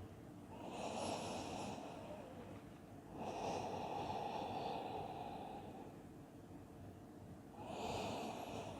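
A person breathing slowly and audibly in a held yoga forward fold: three soft breaths, the middle one the longest.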